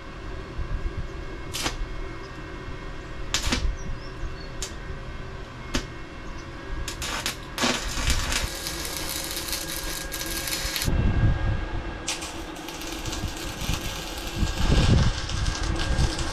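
Arc welding on steel security bars: a few short crackles as the arc is struck, then the arc crackling and sputtering steadily for a few seconds at a time, twice, with low thuds in between.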